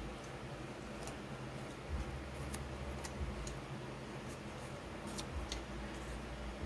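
Scattered light ticks and clicks from craft supplies being handled on a work table, over the steady hum of an electric fan.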